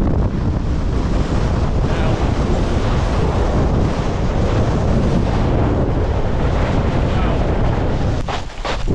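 Strong wind buffeting the camera's microphone, a loud, steady rumble. Near the end the wind briefly eases and a few short knocks come through.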